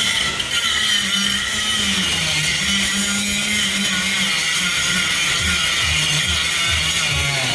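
Electric power tool running steadily under load, cutting or drilling through a steel door hinge, its hum dropping in pitch a couple of times as it bites.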